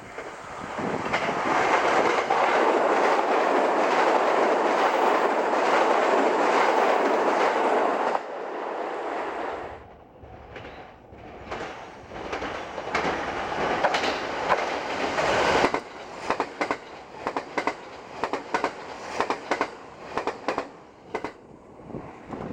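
Limited express electric train passing at high speed: a loud rush of wheels on rail and air for about eight seconds, then it falls away abruptly. A second train pass follows, ending in its wheels clicking over rail joints about two to three times a second.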